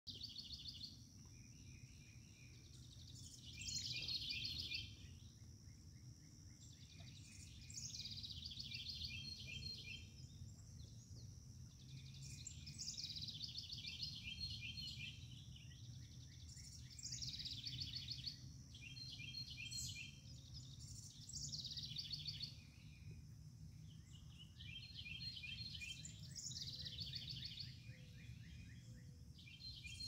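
A songbird repeating the same short phrase of rapid high notes about every four to five seconds. Under it are a faint steady high tone and a low steady rumble.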